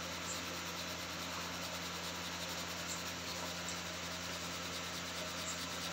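Steady hiss with a faint low hum, even in level throughout.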